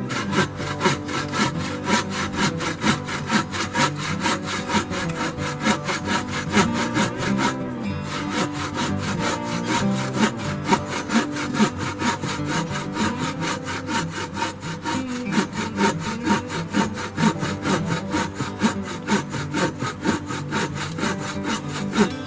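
Hand saw cutting through firewood in steady back-and-forth strokes, about three a second, with a brief pause about eight seconds in.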